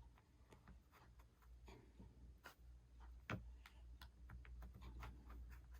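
Faint scattered clicks and light scratching of a pick prying an iPhone 6 screen up from its frame, with one sharper click a little past the middle, over a low steady hum.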